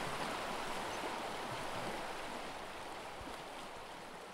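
Running water of a mountain stream, a steady rushing that slowly fades.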